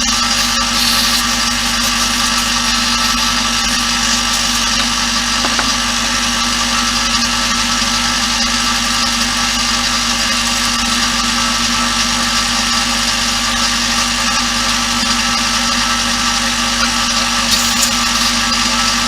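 An electric machine running steadily, a constant mechanical hum with several fixed tones and no change in level.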